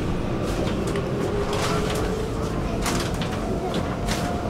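Stockholm metro train heard from inside the carriage: a steady low rumble with short hisses and clicks about once a second, and a faint steady tone coming and going.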